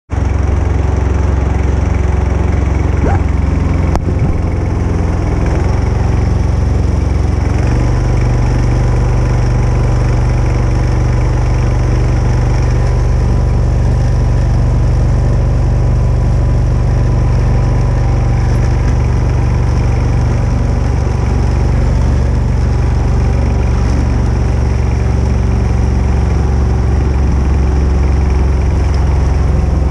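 Mokai motorized kayak's engine running through a prototype ES-kape 2.0 muffler, a loud steady drone. The engine note shifts to a new steady pitch about eight seconds in and then holds.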